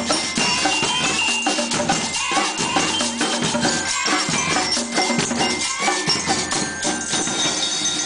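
Band music with drums and shaker-type percussion beating out a busy rhythm, with short ringing notes of a bell lyre above it.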